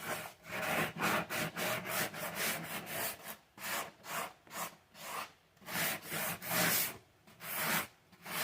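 Sandpaper on a sanding block rubbed back and forth over a wooden door frame, smoothing down scratched, loose wood. The strokes are quick at first, then from about three seconds in they slow to separate strokes about two a second.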